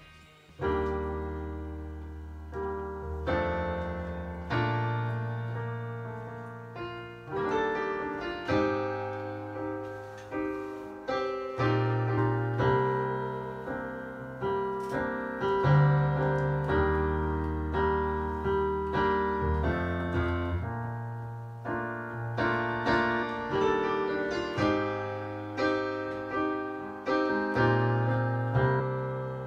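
Electric stage piano playing a solo intro: slow chords over low bass notes, each struck and left to ring and fade, a new chord every one to two seconds.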